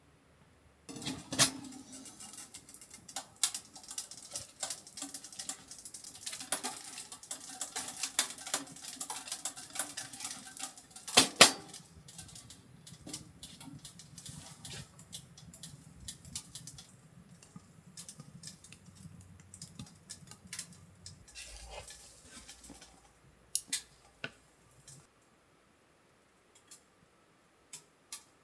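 Dishes and utensils clinking and clattering in a run of quick clicks and knocks, busiest in the first half, with one louder knock about eleven seconds in.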